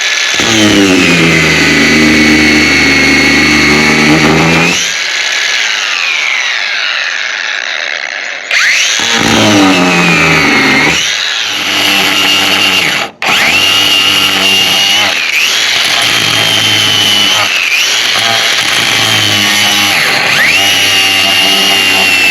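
Angle grinder with a grinding wheel cutting off nails: the motor whine drops in pitch as the wheel bites into the metal and rises again when eased off. About five seconds in it is switched off and winds down, then it starts again, cuts out for an instant about thirteen seconds in, and keeps grinding.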